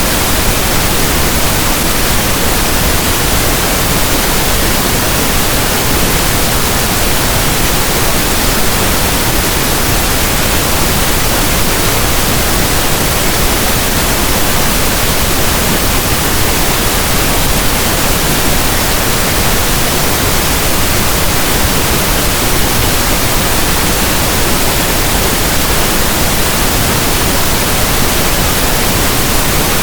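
Generated pink noise: steady, even static like a radio not tuned to a station.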